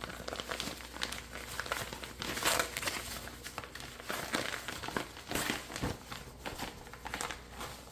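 Crinkling and rustling as a snap-on baby bib is handled and its pocket flipped over to the other side, with many small irregular crackles.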